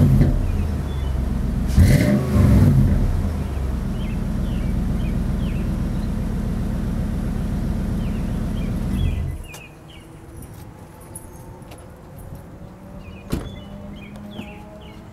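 Nissan Titan's 5.6-litre V8 running through a newly fitted Flowmaster dual exhaust. It gives a quick rev about two seconds in, then idles steadily until the engine is shut off about nine seconds in.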